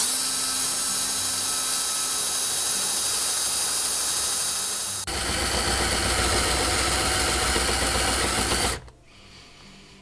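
Handheld electric drill boring holes into the aluminum port floor of a big-block Chevy cylinder head, running steadily under load. It dips briefly about five seconds in, comes back with a heavier low end, and stops near the end.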